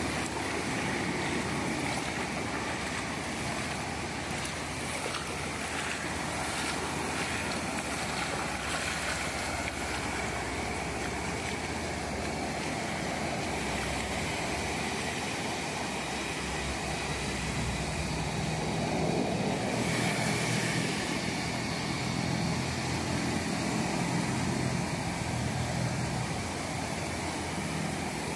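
Ocean surf breaking offshore and washing up over the wet sand in a steady rush, with a low engine hum joining in during the second half.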